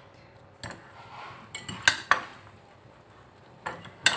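Metal fork clinking and scraping against a ceramic bowl while mixing food: a single clink a little over half a second in, a quick cluster of clinks around two seconds, and two more near the end.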